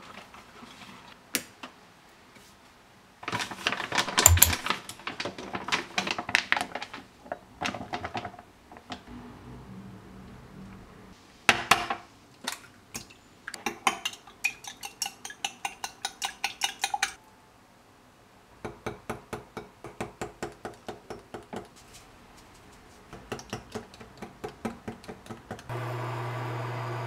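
Kitchen dishes and utensils clinking and knocking, then a wire whisk beating eggs in a glass bowl in a fast, even run of metallic strokes, followed by a slower run of stirring strokes. A steady hum starts near the end.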